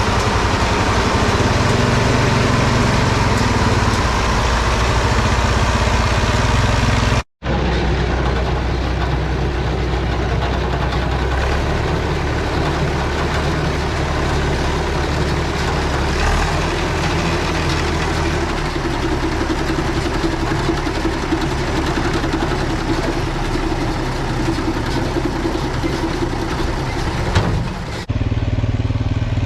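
Tractor engine running steadily while pulling a round baler through the hay. The sound cuts out for an instant about seven seconds in and changes abruptly near the end.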